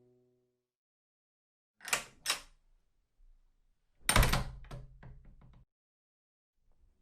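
Two quick knocks on a door, then about two seconds later a heavier bang like a door slamming shut, with a short rattling tail.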